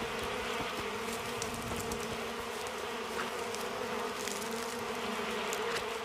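A disturbed colony of wild honeybees buzzing in a steady drone as their nest in a tree trunk is smoked and opened, with faint scattered clicks.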